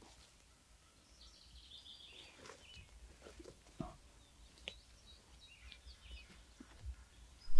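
Songbirds chirping and singing faintly, with a few soft ticks and rustles from crawling on hands and knees through grass and leaf litter.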